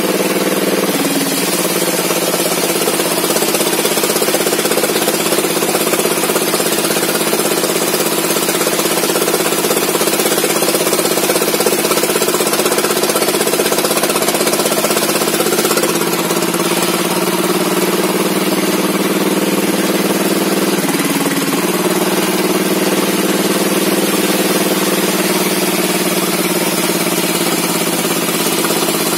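Engine-driven saw cutting a log, its small petrol engine running steadily under load, with brief dips in pitch about a second in and again around twenty seconds in.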